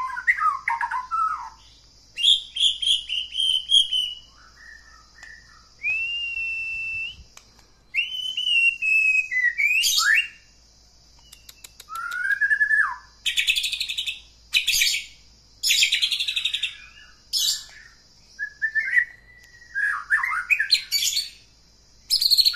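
White-rumped shama singing: a varied series of loud, clear whistled phrases, some gliding up or down, broken by short pauses and several fast chattering rattles, over a steady high hiss. It is a lure song used to coax quiet or sluggish shamas into singing.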